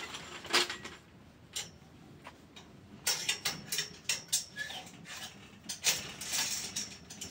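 Irregular small metallic clicks and knocks of hand work on the steel hoop pipes of a greenhouse frame, bunching up about three seconds in and again near six seconds.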